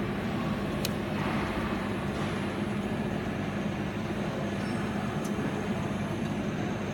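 Steady drone of workshop machinery with a low hum, and two sharp clicks, one about a second in and one around five seconds.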